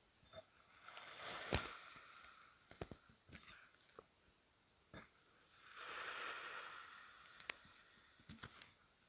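Kinetic sand being cut and scooped: a soft crumbling, grainy rustle that swells twice, about a second in and again around six seconds in, with a few short sharp clicks between.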